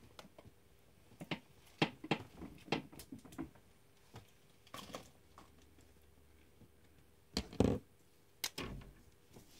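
Scattered light taps and scratchy strokes of a pen or marker on paper, with a heavier thump about seven and a half seconds in and another soon after.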